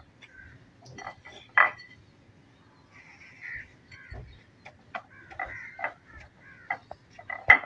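Hands patting and pressing dry bread crumbs onto an egg-dipped sandwich on a plate: scattered light taps and clicks with soft crumbly rustling.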